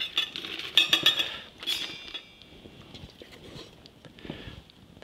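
A spatula scooping meringue out of a stainless steel mixing bowl into a plastic pastry bag set in a metal canister: a few clinks and scrapes against the metal in the first two seconds, then only faint small sounds.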